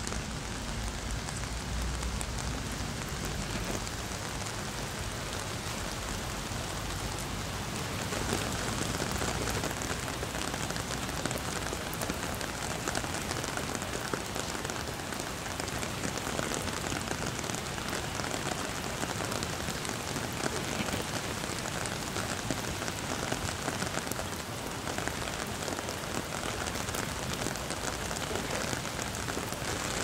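Steady rain falling on trees and wet ground: an even hiss flecked with many small drop ticks. It grows slightly louder about eight seconds in.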